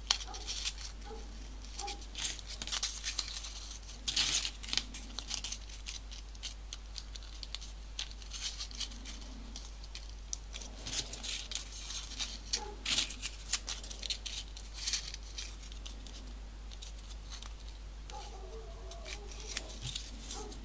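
Folded paper modular-origami pieces rustling and crinkling as they are pushed onto one another, in short irregular crackles.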